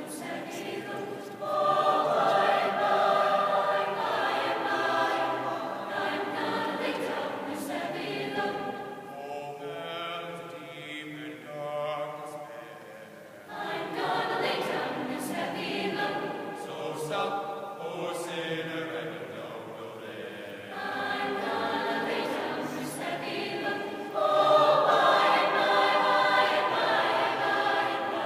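High school choir singing sustained chords, swelling loud about a second and a half in, dropping to a softer passage midway, and swelling loud again near the end.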